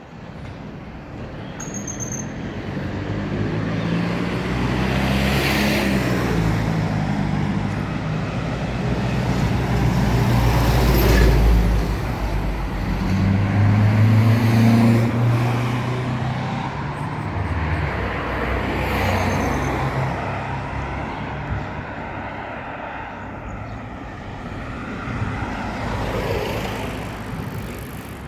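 Motor vehicles passing close by on a road, one after another, with engine hum and tyre noise swelling and fading; the loudest passes come about a third of the way in and around halfway.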